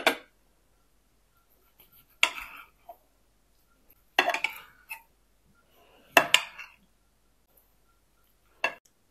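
A chef's knife slicing through raw chicken breast and striking a ceramic plate: about five sharp clacks roughly two seconds apart, each followed by a short scrape.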